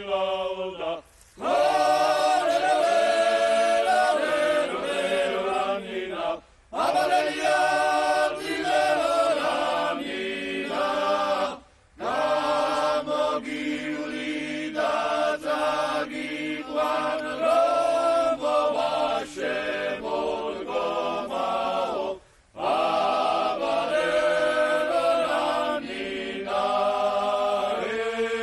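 Male vocal ensemble singing a polyphonic folk song in several parts, in long phrases broken by short pauses for breath.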